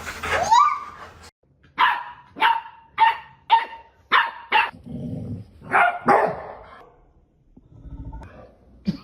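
A dog barking: a rising yelp at the start, then six sharp barks at about two a second, and one more bark a second later.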